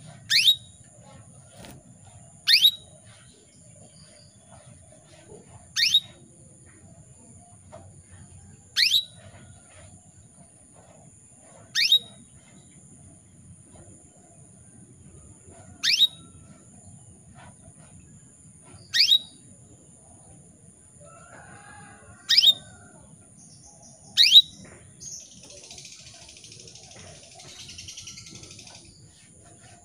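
Female canary in breeding condition calling for a male: a single short chirp that sweeps sharply down in pitch, repeated nine times at intervals of two to four seconds.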